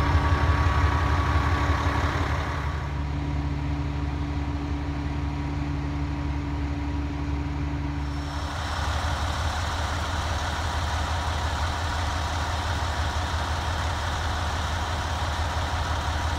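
Cummins ISM inline-six diesel of an International 7600 dump truck idling steadily, a little louder in the first couple of seconds, its tone changing about eight seconds in.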